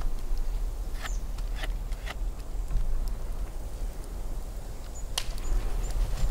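A knife scraping dirt off a matsutake mushroom's stem: a few scattered sharp, scratchy ticks over a steady low rumble.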